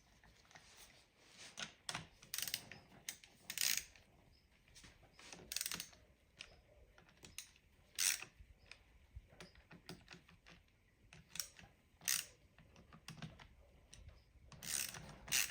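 Irregular small metallic clicks and taps of nuts, washers and tools being handled on a Yamaha RD engine's crankcase as the case fasteners are done up finger tight to close the case.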